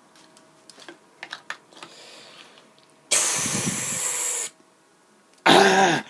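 A few light clicks, then a loud hissing rush lasting about a second and a half, ending suddenly. About a second later comes a short, loud vocal sound with a bending pitch.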